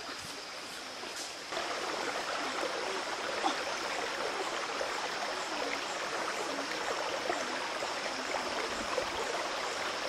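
Steady rush of a shallow stream running over rocks, stepping up in level about a second and a half in.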